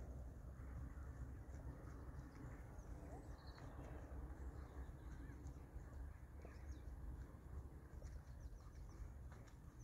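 Faint outdoor sound: a steady low rumble with scattered bird calls and the soft hoofbeats of a horse cantering on an arena surface.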